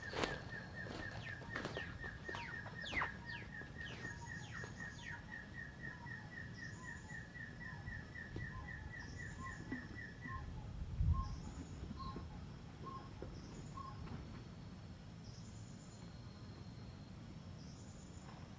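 Hill partridge (puyuh gonggong) calling: a steady series of short whistled notes on one pitch, about three a second, that stops about ten seconds in. Other forest birds add falling whistles in the first few seconds and a high chirp every second or two, and there is one dull thump about eleven seconds in.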